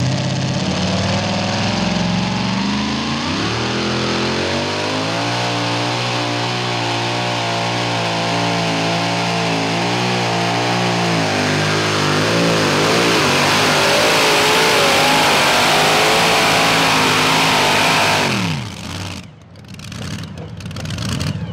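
Supercharged alcohol-burning big-block engine of a super modified two-wheel-drive pulling truck running hard under load. It revs up about three seconds in, holds high revs, and its pitch wavers through the second half. It drops away sharply as the throttle is released near the end.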